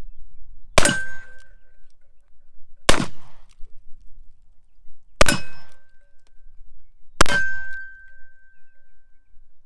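Colt 1860 Army reproduction .44 cap-and-ball revolver firing four black-powder shots about two seconds apart. After the first, third and fourth shots a steel target rings with a clear tone, and the last ring lasts about two seconds.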